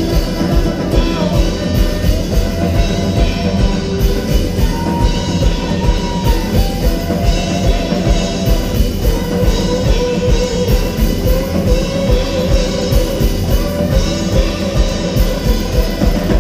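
Live rock band playing an instrumental passage: drum kit keeping a steady beat of about two hits a second under bass guitar and guitars, with a guitar playing a melodic line over the top.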